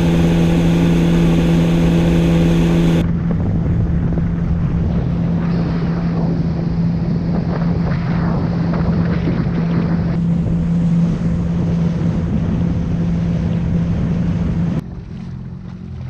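Yamaha WaveRunner jet ski engine running steadily under way, a constant drone with water rush and wind buffeting the microphone. The sound changes abruptly about three seconds in and drops quieter near the end.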